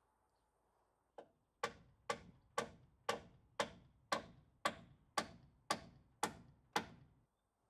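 Hand hammer driving a nail through a timber beam into a post: one light starting tap, then eleven steady blows about two a second, each ringing briefly.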